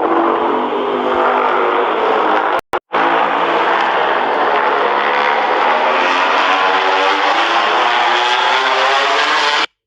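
Godzilla-film monster roar sound effect: a long, drawn-out roar with a layered, wavering pitched tone. A brief cut a little under three seconds in breaks it, then it runs on and stops just before the end.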